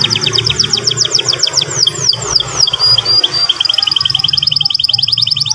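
Canary singing long rolls: fast trills of repeated high chirping notes, about ten a second. Around the middle they slow into a few downward-sweeping notes, then speed up into a fast trill again.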